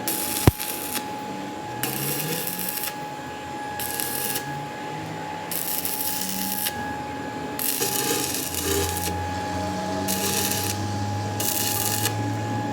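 A hand file rasping in repeated strokes against a metal workpiece turning in a lathe, about one stroke every second and a half to two seconds, over the lathe's steady whine. There is a sharp click about half a second in.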